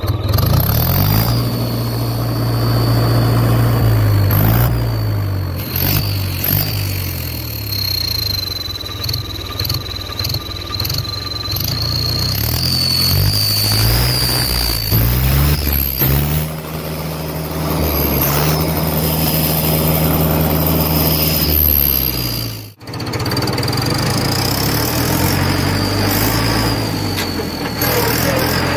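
Tractor diesel engine revved repeatedly, with an exhaust-mounted turbo whistle giving a high whistle that climbs and falls with each rev, imitating a turbocharger. After a sudden break a little after two-thirds through, the engine runs on under way.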